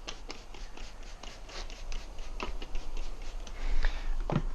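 A motorcycle tire's beads being wetted with tire lube by hand, heard as a run of small irregular taps and rubbing sounds.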